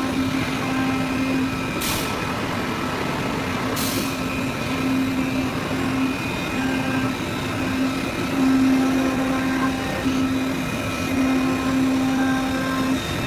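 CNC oscillating knife cutting machine running: a steady mechanical noise with a low hum that starts and stops every second or so, and two short hisses about two seconds apart.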